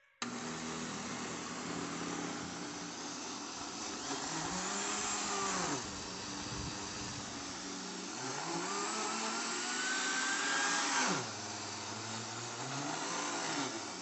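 Electric countertop blender switching on just after the start and running steadily, grinding a dry mix of roasted-chestnut flour, sugar and wheat flour. Its pitch rises and falls several times while the jar is rocked from side to side, with one long rising whine that drops suddenly about eleven seconds in.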